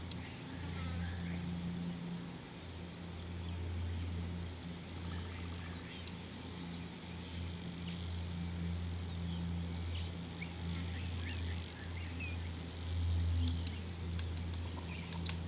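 A steady low hum, with many short, high bird chirps and twitters scattered over it.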